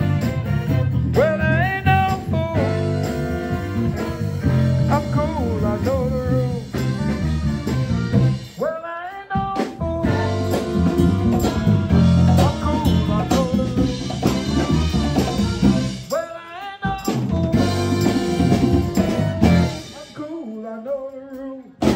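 A live band playing with a lead singer, over a strong bass line and beat. The music cuts out suddenly for a moment twice, about nine and seventeen seconds in.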